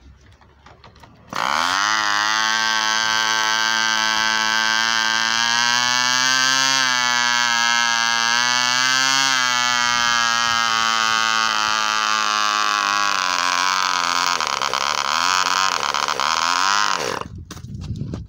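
Cox .15 Medallion model glow engine with a custom ABC cylinder catching about a second in from an electric starter, then running loud and high-pitched at steady speed without its exhaust pipe. Its pitch wavers slightly and sags near the end before the engine cuts out about a second before the end.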